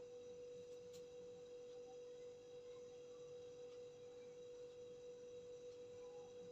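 Near silence: room tone with a faint, steady tone held at one pitch throughout.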